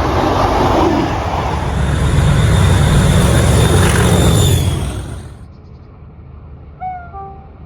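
Class 47 diesel locomotives and empty coaching stock passing at speed: a loud rumbling roar with wheel and rail noise that drops away quickly about five seconds in as the train clears. A few short high chirps follow near the end.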